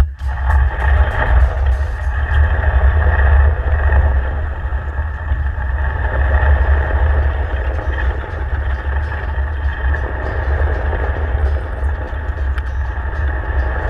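A boat engine running steadily, a low rumble with a continuous mid-pitched drone over it.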